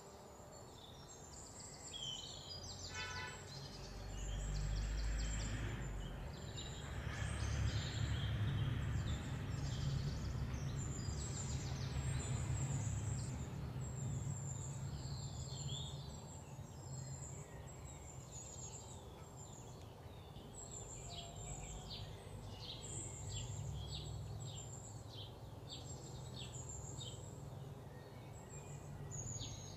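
Small birds chirping and calling, many short high notes and a quick trill, over a low steady rumble that is loudest in the first half.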